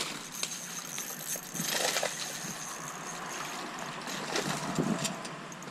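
Hooked peacock bass splashing and swirling at the water's surface as it is reeled in, with a few faint clicks.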